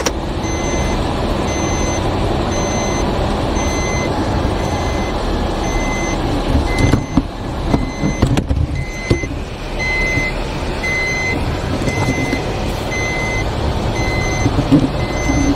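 Car air-conditioning blower running on a high fan setting, a steady rush of air inside the cabin. Over it, a short electronic warning chime in the car beeps evenly, a little faster than once a second.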